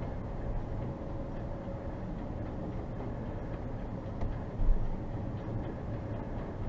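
Road and engine noise inside a moving car: a steady rumble with a faint hum, and a low thump about four and a half seconds in.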